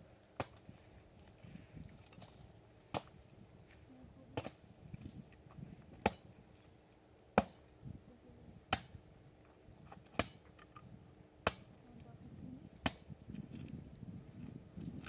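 A series of sharp strikes: nine in all, coming at a steady pace of about one every second and a half after a longer gap following the first. Faint low background sound lies between them.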